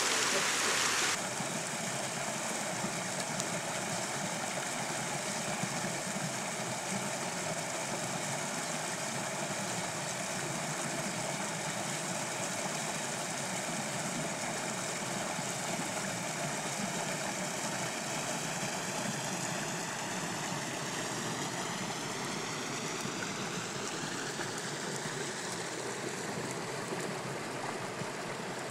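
Small meadow brook running and trickling over a little step in its channel, a steady rush of water; a little louder in the first second.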